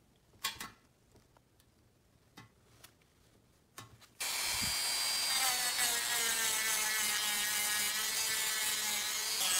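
A few light clicks of handling, then about four seconds in a Dremel 3000 rotary tool switches on and runs with a steady high whine, its sanding drum grinding against a small round metal part.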